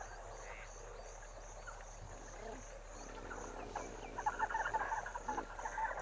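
Wetland ambience: insects chirping in a steady high pulse, about two or three times a second, joined about four seconds in by a rapid rattling chorus of frogs.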